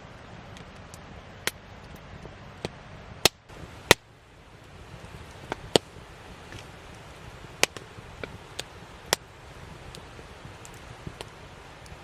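Wood campfire crackling: about a dozen irregular sharp pops over a steady low hiss.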